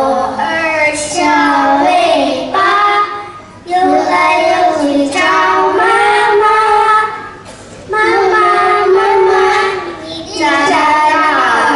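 Children singing, in sung phrases of a few seconds with short breaks between them.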